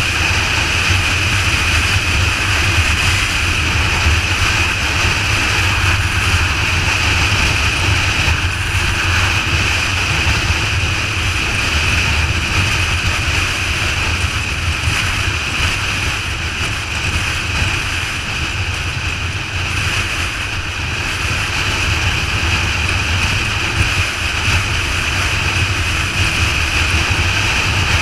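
Motorcycle at freeway speed: a steady, loud rush of wind over the microphone, with a low, even drone of engine and road noise beneath it.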